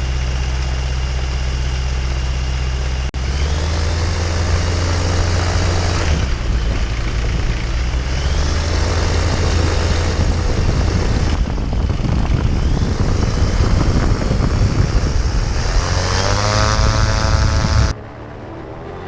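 An engine running steadily, loud and low-pitched, broken by abrupt cuts a few times. Its pitch rises near the end, then it gives way to quieter music for the last second.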